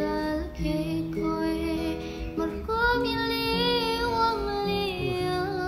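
A young woman singing a slow, gentle song in the Malay/Javanese style, holding long notes with wavering melismatic ornaments (cengkok), to a soft acoustic guitar accompaniment.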